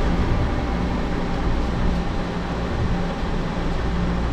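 Steady low rumble and hiss of background room noise, with no distinct events.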